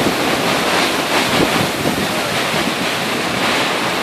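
Steady noise of a heavy rainstorm and muddy flash-flood runoff pouring off the slickrock, with wind buffeting the microphone.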